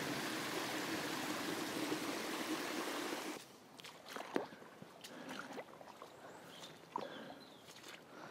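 Stream water trickling and splashing steadily over a small beaver dam of sticks and brambles, cutting off abruptly about three and a half seconds in. After that comes a much quieter stretch with a few soft footfalls of wellington boots on a wet, grassy path.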